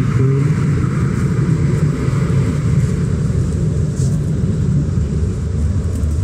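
Diesel engine of a Scania K410 double-decker bus idling with a steady low rumble.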